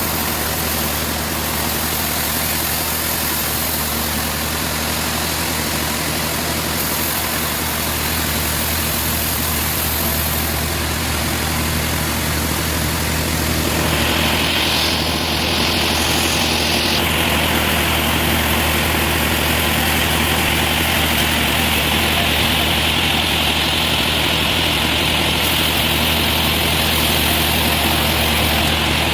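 Sawmill machinery running steadily with a low engine drone. About halfway through, a higher whine joins and holds.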